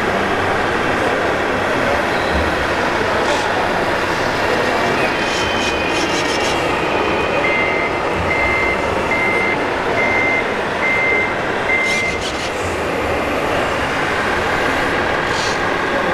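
Six evenly spaced reversing-alarm beeps, a little under one a second, from a radio-controlled scale model truck's sound module, over the steady din of a crowded exhibition hall.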